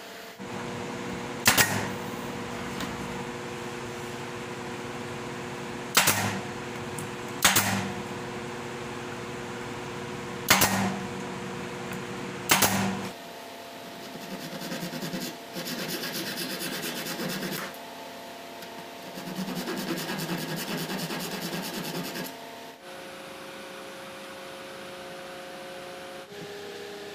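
Five sharp knocks in the first half, over a steady workshop hum. Then three stretches of rubbing as a long steel blade is worked along the oak door frame, each lasting about one to three seconds.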